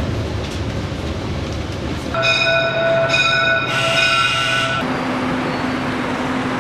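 Low rumble of a passenger train coach running, then a diesel locomotive's horn sounds for about two and a half seconds, its chord breaking twice. After the horn a single steady low hum continues.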